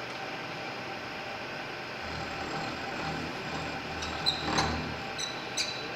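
Horizontal milling machine running with a steady hum. A low rumble swells in about two seconds in and fades about a second before the end, with a few sharp metallic clicks near the end.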